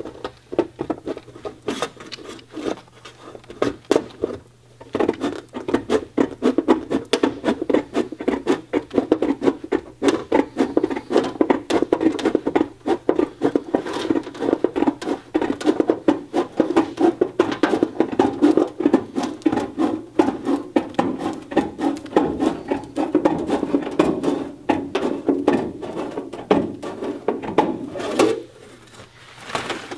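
Hand tin snips cutting thin .025-inch embossed aluminum diamond plate sheet: a dense, steady run of crisp snipping and crunching clicks as the blades close along the cut. There is a short pause about four and a half seconds in and a quieter stretch near the end.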